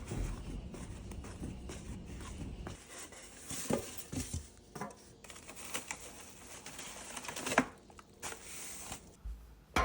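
Scattered handling noises: a low rumble at first, then irregular short knocks and clicks with some rustling, as of items and packaging being set down and moved about.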